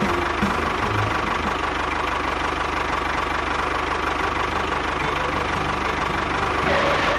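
A small engine running steadily with a rapid knocking pulse, swelling briefly near the end.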